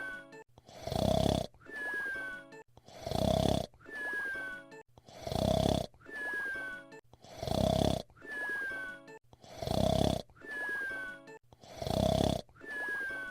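Fred Flintstone's cartoon whistle-snore: a loud snore followed each time by a short falling whistle. The cycle repeats evenly about every two seconds, six times over.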